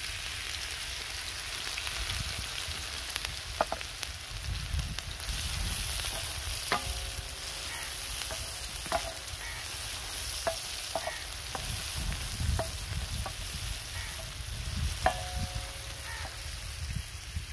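Chopped onions sizzling in hot oil on a large flat tawa over a medium fire, stirred with a wooden spatula. The spatula knocks on the griddle again and again, some knocks leaving a brief ring.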